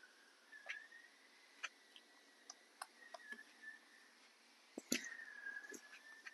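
Faint, scattered wet clicks and smacks of a baby monkey chewing apple, with a louder knock about five seconds in.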